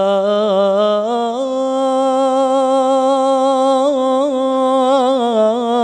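A male voice singing an Islamic shalawat, holding one long melismatic note that wavers with ornaments. The pitch steps up about a second and a half in.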